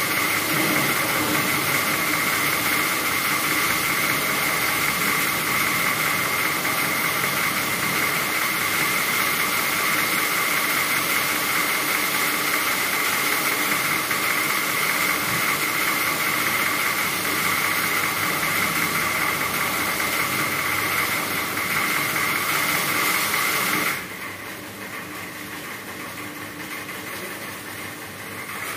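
A motor-driven machine running steadily, a hiss with a high whine and a lower hum, that cuts off suddenly near the end.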